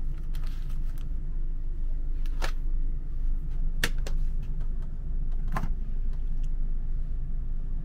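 Steady low rumble inside a sleeping-car compartment, with a few sharp clicks and knocks as the hinged metal-and-plastic cover of the fold-down washbasin is unlatched and lifted open.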